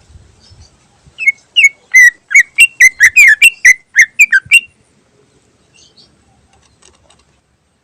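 Greater green leafbird (cucak ijo) singing a fast run of loud, clear whistled notes, starting about a second in and stopping after about three and a half seconds.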